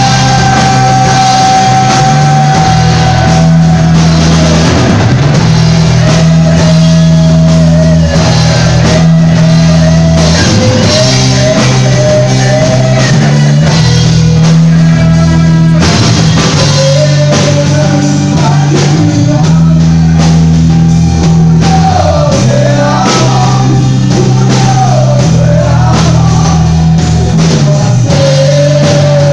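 A rock band playing live: electric guitars and a drum kit, with a man singing over them.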